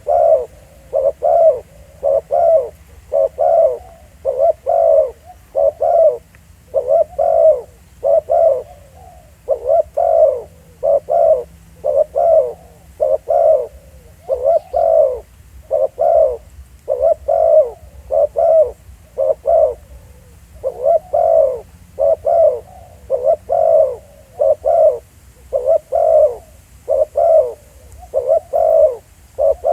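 Spotted doves cooing continuously in short pitched coos, about one a second, grouped in twos and threes.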